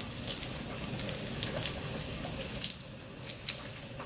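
Boiled quail eggs being peeled by hand over a bowl of water: faint wet dripping and squishing as the shells come off, with a few light clicks scattered through.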